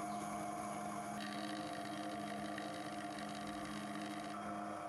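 Watchmaker's lathe running with a steady motor hum while a fine twist drill bores into a spinning silver steel pillar. A higher hiss of cutting comes in about a second in and stops shortly before the end.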